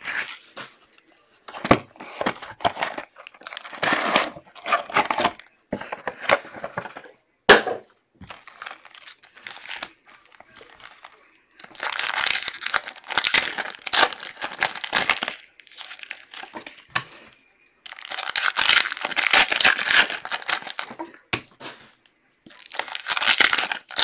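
Wrappers of Panini Contenders football card packs being torn open and crinkled by hand. It comes in bursts of crackling, with a sharp snap about seven and a half seconds in. The longest and loudest bursts come around the middle and again a few seconds later.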